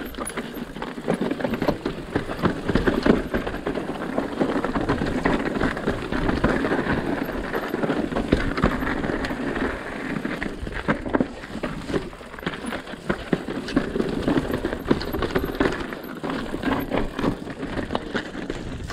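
Mountain bike descending a rough, rocky trail: tyres crunching and skittering over loose stones, with the frame, chain and parts rattling and knocking over the bumps.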